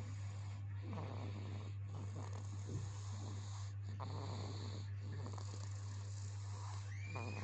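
A sleeping person snoring, a run of noisy breaths with short pauses between them, over a steady low hum. Near the end comes a brief rising high-pitched cry.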